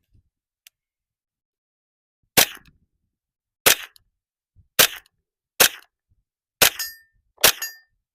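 A .22LR HK MP5 rifle firing six single shots, one about every second, each a sharp crack. These are zero-check shots.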